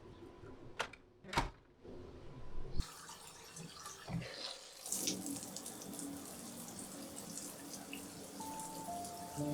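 Two sharp clicks, then water starts running, a steady splashing hiss from about five seconds in. Soft music notes come in near the end.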